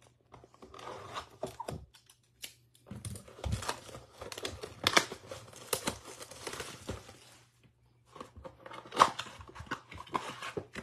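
Plastic shrink-wrap being torn and crinkled off a cardboard trading-card blaster box, then the box's cardboard flap pulled open: irregular crackling and tearing with a couple of short pauses.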